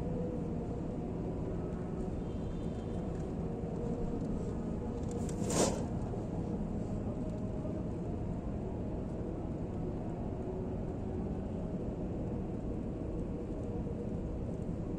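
Steady low background noise of a quiet mosque room during a silent pause in the prayer, with a faint hum, and one short click about five and a half seconds in.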